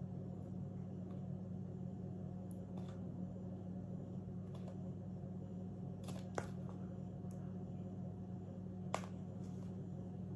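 Faint, scattered taps and clicks of a spoon against a plastic tub and mixing bowl as spoonfuls of flour go in, about six in all, over a steady low hum.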